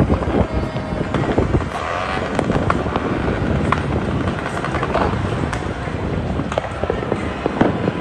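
Many fireworks going off at once: a dense, continuous crackle of sharp pops over a steady rumble.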